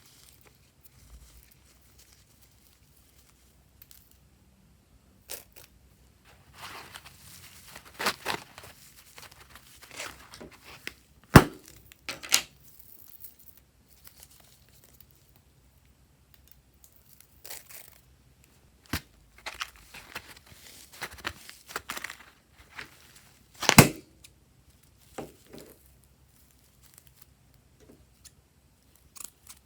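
Slime being handled, pulled and torn apart: sticky crackling and tearing noises with a few sharp snaps, the loudest about eleven and twenty-four seconds in.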